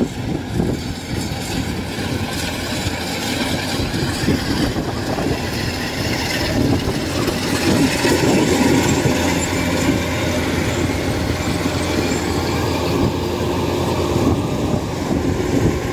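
Kubota DC-93 combine harvester running steadily while it cuts rice, a continuous engine and machinery drone, with wind on the microphone.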